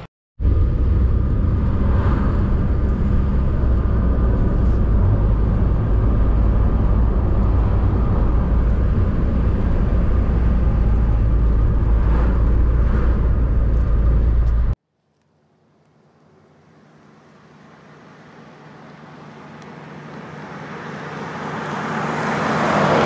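A car driving on a road, heard from inside the cabin: a loud, steady low rumble of engine and road noise that cuts off abruptly about fifteen seconds in. After a short silence, a different sound swells steadily louder toward the end.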